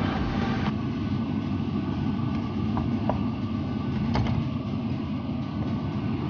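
A steady low mechanical hum with a few faint light ticks. Background music fades out about a second in.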